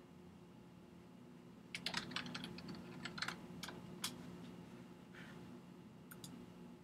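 Typing on a computer keyboard: a quick run of keystrokes starting about two seconds in, then a few scattered key presses, over a low steady hum.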